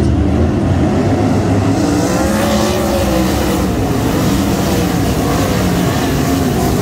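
Sprint car V8 engines running at race speed on a dirt oval, loud and continuous, the engine note rising and falling as the cars pass and go through the turns.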